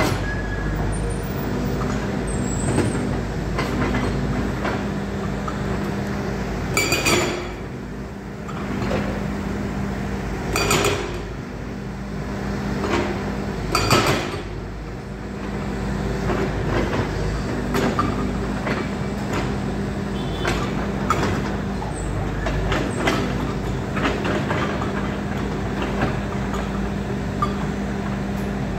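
Volvo EC210D excavator's diesel engine running steadily, with loud metallic clanks about 7, 11 and 14 seconds in and lighter knocks and rattles throughout.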